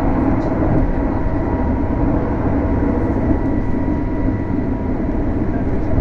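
Regional passenger train heard from inside the carriage, running at speed: a steady rumble of wheels on rail with a faint high steady whine over it.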